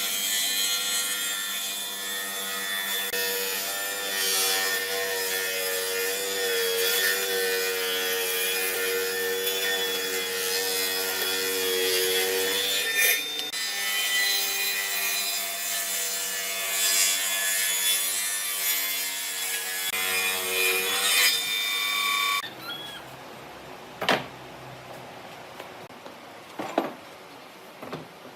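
A tool working wood: a steady sawing, rubbing noise over a held hum. About three-quarters of the way through it stops suddenly, leaving a few sharp knocks.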